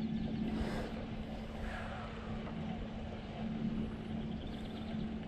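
A boat motor humming at one steady pitch, under a rushing noise of wind and water.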